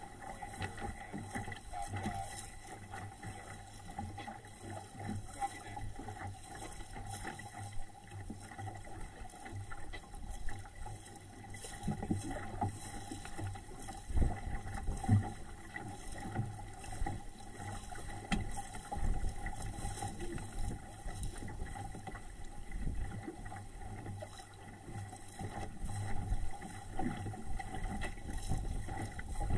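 Water rushing and splashing along the hull of a small SCAMP sailboat under sail, with wind gusting on the microphone.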